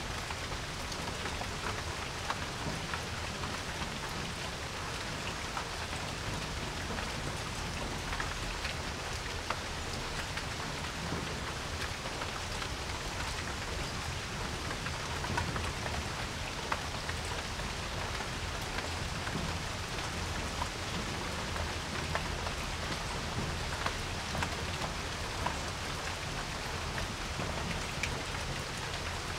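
Steady rain falling on a porch, an even hiss with many individual drops ticking close by.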